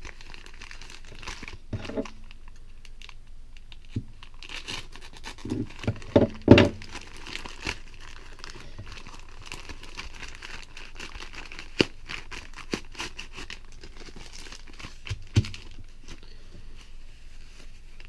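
A plastic postal mailer bag being handled and torn open by hand: steady crinkling and rustling of the plastic, broken by a few sharp knocks and louder crackles, the loudest about six seconds in. Near the end, foam packing sheet rustles as it is unfolded.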